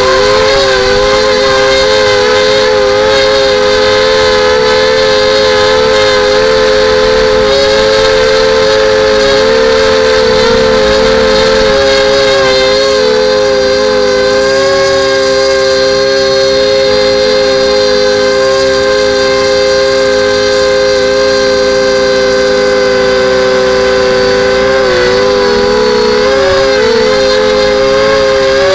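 FPV quadcopter's motors and propellers whining steadily in flight, a loud two-note whine that wavers in pitch a few times near the end as the throttle changes.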